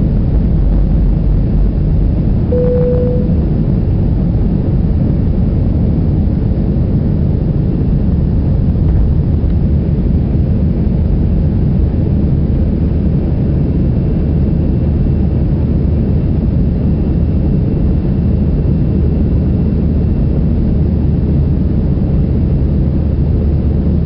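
Jet airliner heard from inside the cabin: the engines and airflow make a steady, loud, low rumbling roar. About two and a half seconds in there is a short single tone.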